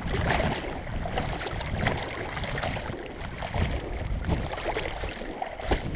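Shallow river water splashing and lapping over a pebbly bank as a gloved hand swishes through it, in irregular small splashes.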